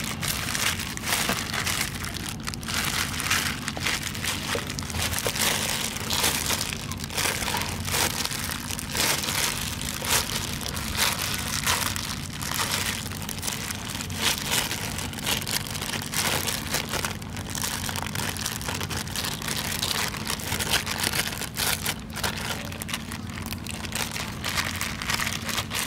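A thin clear plastic bag crinkling and rustling without a break as hands rub and squeeze it. A low steady hum runs underneath.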